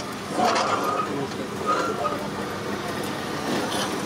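Steady low rumble of background noise with faint voices and brief higher tones about half a second in and near two seconds.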